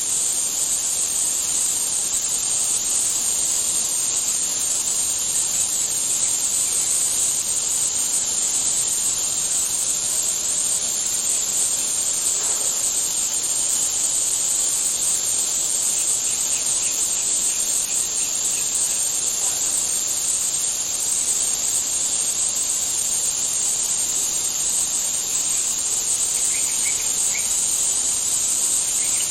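Steady high-pitched chorus of insects, such as crickets or cicadas, droning without a break, with a few faint short chirps about halfway through and near the end.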